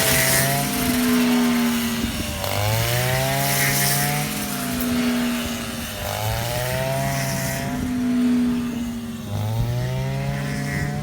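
Rice combine harvester's engine running under working load. Its pitch rises sharply and sags again in a repeating cycle about every three and a half seconds, over a steady hiss from the working machinery.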